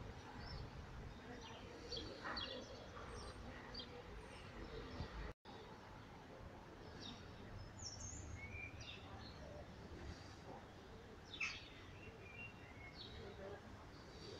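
Faint outdoor ambience of a quiet stone square: scattered short chirps of small birds over a low steady rumble, with one louder chirp near the end and a momentary dropout to silence about five seconds in.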